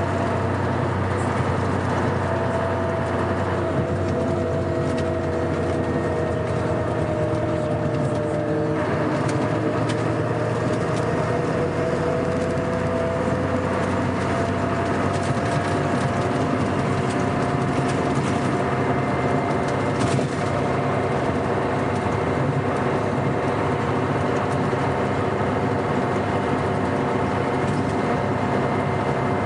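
Scania K420 coach's six-cylinder diesel engine running at steady cruising revs, a continuous drone whose pitch sags slightly and then climbs gently again about a third of the way in.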